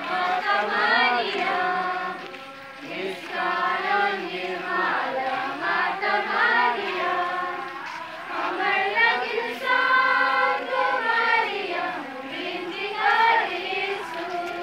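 Crowd of men and women singing a hymn together as they walk.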